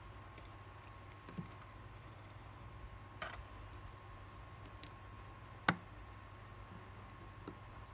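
A few faint, sharp clicks and taps of tweezers and small metal parts against an automatic watch movement held in a movement holder, the loudest about three-quarters of the way through.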